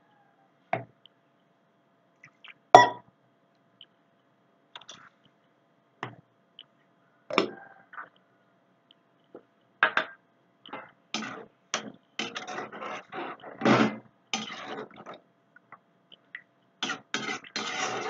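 Kitchen utensils knocking and scraping against an aluminium cooking pan of chicken gravy, in scattered short clatters with a sharp knock about three seconds in and a busier run of scraping in the second half.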